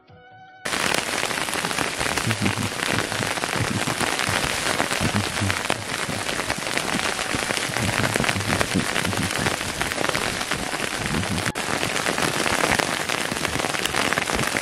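Heavy wet snowfall pattering steadily on a tent and waterproof gear, starting suddenly about a second in, with scattered low thuds.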